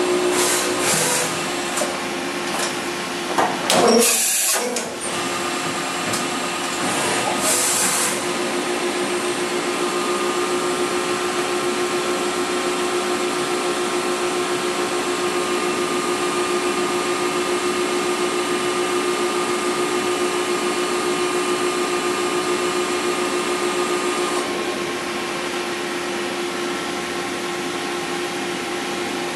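Mori Seiki NVX5100 CNC vertical machining center running under power: a steady motor whine with several held tones. A few short noisy bursts come in the first eight seconds, the loudest about four seconds in. The whine drops slightly about 24 seconds in.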